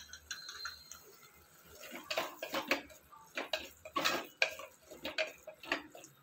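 Wooden spoon stirring a thick masala in a clay cooking pot: quick scraping strokes against the pot, several a second, starting about two seconds in, after a single click at the start.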